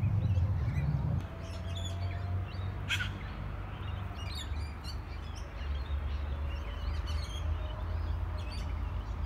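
Wild birds chirping and calling, short scattered calls throughout, over a steady low rumble of wind on the microphone.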